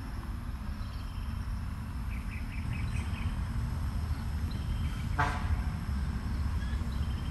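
Outdoor rural ambience: a steady low rumble under a thin, steady high insect buzz. A few quick bird chirps come about two seconds in, and a single short, sharp pitched call or squeak just after five seconds is the loudest sound.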